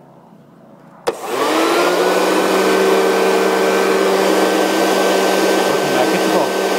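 Electric leaf blower switched on with a click about a second in, its motor whining up in pitch to full speed and then running steadily.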